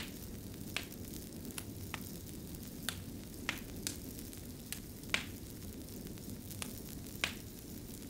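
Wood fire burning in a fireplace: a steady low rumble of flames with a dozen or so irregular sharp crackles and pops from the logs, the loudest about five seconds in.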